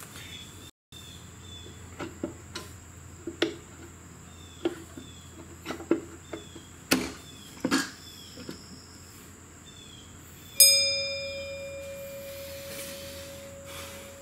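Metal parts and hand tools clinking and knocking as they are handled, about a dozen short taps. Near the end a metal piece is struck sharply and rings on with a clear, bell-like tone that fades over a few seconds.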